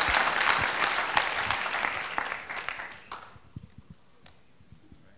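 Audience applauding, the clapping dying away about three seconds in, followed by a few faint clicks.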